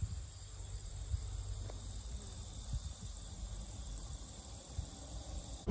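Crickets trilling steadily, a fast, even, high-pitched pulsing, over a low rumble.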